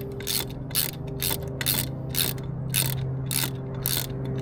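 Ratchet wrench clicking on its return strokes, about two strokes a second, as the bolts holding the outboard's lower unit to the midsection are run down snug. A steady low hum sits underneath.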